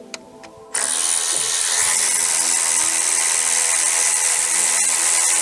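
Power ratchet spinning out the 10 mm mounting bolts of an electronic throttle body. It is a steady, loud, hissing whir that starts abruptly under a second in.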